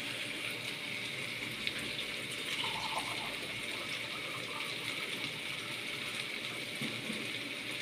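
Kitchen tap running steadily, filling a cup with water, with a few faint clinks.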